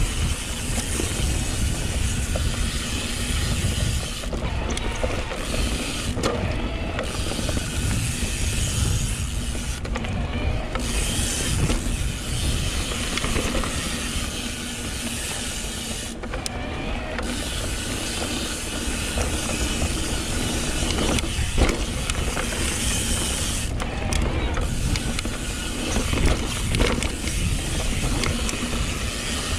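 Trail-riding noise of a YT Decoy electric mountain bike on singletrack: wind rushing over the camera microphone, tyres on dirt, and the bike rattling over bumps, with a few sharper knocks.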